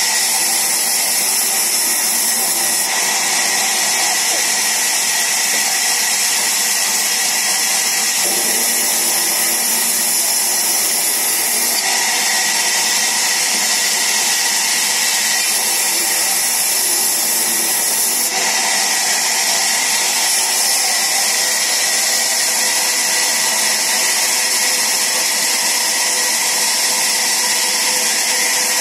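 Sawmill band saw running continuously and cutting wooden planks as they are pushed through, a steady hissing whine that shifts in tone every few seconds.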